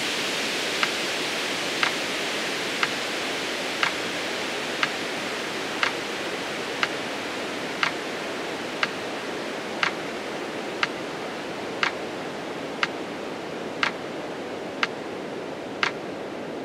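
Metronome ticking once a second, pacing the counts of a slow breathing exercise's exhale, over a steady background hiss.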